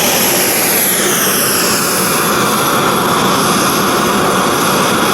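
Ozark Trail camp stove burner running at full blast, a loud steady rushing hiss of gas flame under a titanium canteen cup of water coming up to the boil. About a second in, some high thin tones slide downward.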